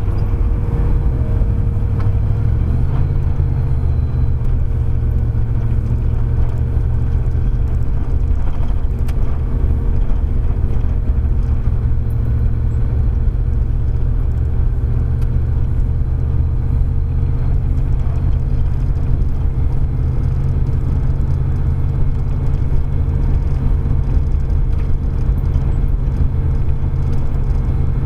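Steady low rumble of a GMC with a Chevrolet 305 small-block V8 driving at an even pace, engine and road noise heard from inside the cab.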